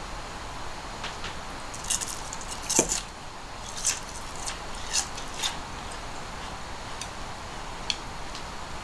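Light clinks and taps of tableware and chopsticks on a wooden dining table, with a louder knock about three seconds in as a drink can is set down on the table.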